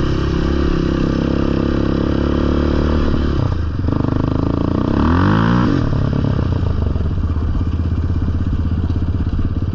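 Sport ATV engine running along a dirt trail. It eases off about three and a half seconds in, revs up quickly around five seconds in, then settles back into steady running.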